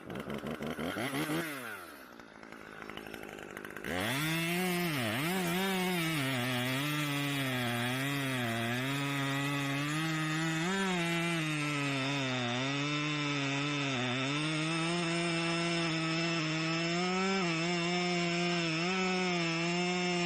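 Husqvarna T540XP two-stroke top-handle chainsaw. It revs up briefly and sags away in the first two seconds, then about four seconds in it catches and runs fast for the rest, its speed wavering up and down as the throttle is held to keep it from choking out. The saw has been cutting out, which the title blames on a vent line fault.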